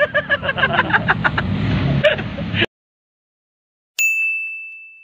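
Street background noise with a fast, irregular run of sharp metallic clicks, cut off abruptly. After a second of silence, a single high electronic chime rings out and fades away.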